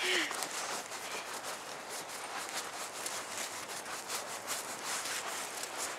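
Footsteps crunching through shallow snow, irregular short crunches, with the rub and rustle of the camera being handled.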